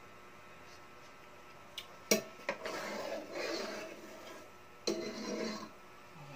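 Metal ladle stirring a pot of simmering sauce: a sharp knock against the pot about two seconds in, then scraping around the pot, and another knock and scrape about five seconds in.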